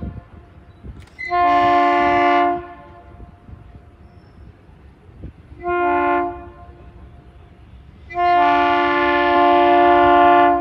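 Diesel locomotive air horn sounding a multi-note chord in three blasts: a long one about a second in, a short one near the middle and a long one starting near the end. Long, short, long is the close of a grade-crossing signal.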